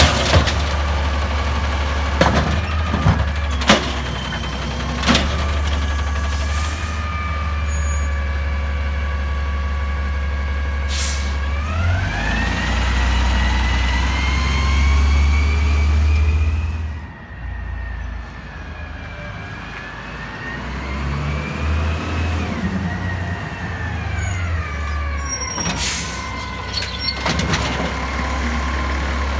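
Natural-gas Freightliner M2 garbage truck with an Amrep automated side-loader arm running under load, its engine and hydraulics whining while the arm dumps a cart, with several sharp knocks and bangs of the cart and lid in the first few seconds. About twelve seconds in the engine revs up as the truck pulls forward, then drops away; near the end more bangs as the arm works the next cart.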